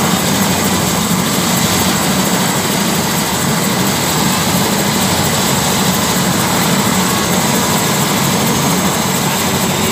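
Single-engine Airbus AS350-type helicopter running on the ground with its main rotor turning: a steady turbine whine over dense rotor noise, holding level without spooling up or down.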